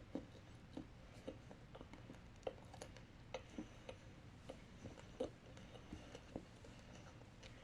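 Faint, irregular small clicks and crackles of white chocolate with popping candy (Pop Rocks) being chewed, the candy crackling as it dissolves.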